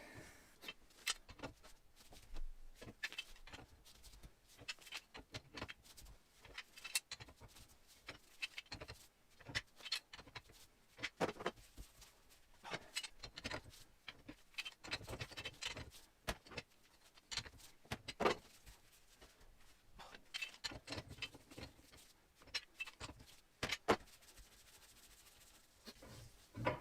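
Scattered light clinks, knocks and rubbing from the parts of a Valmet 505 tractor's hydraulic cylinder being handled during its disassembly, irregular and fairly quiet.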